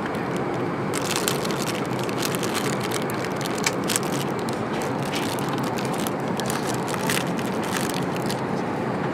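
Plastic food wrapping crinkling under a hand, a run of small crackles starting about a second in, over the steady rush of an Airbus A380's cabin noise in flight.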